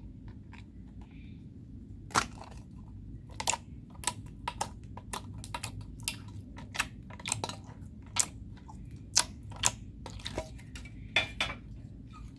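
Homemade slime being squeezed and worked by hand, giving irregular sharp pops and crackles, about twenty of them, beginning about two seconds in.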